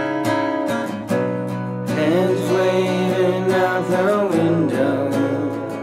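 Background music: strummed acoustic guitar, with a voice singing from about two seconds in.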